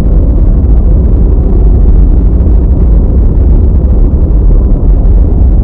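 Loud, steady low rumble with a faint hum above it, a sound effect in a countdown timer's soundtrack.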